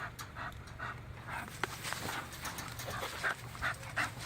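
A dog panting steadily, about two to three breaths a second.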